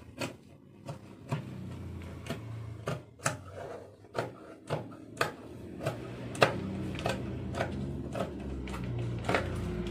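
Fabric scissors cutting through two layers of lace, chantilly and sequined brocade, with a short sharp snip about twice a second.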